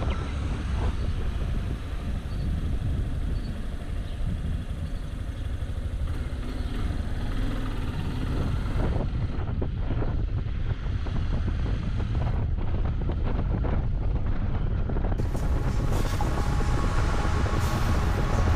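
Yamaha XTZ 250 single-cylinder motorcycle engine running while riding, mostly buried under heavy wind rumble on the microphone.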